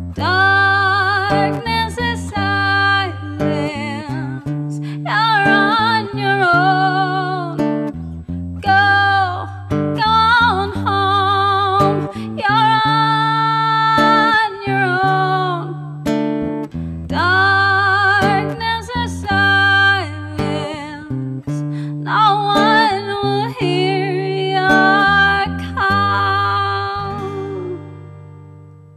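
Acoustic guitar played with a woman singing, her long held notes wavering with vibrato. The singing stops a few seconds before the end and the guitar's last notes fade out.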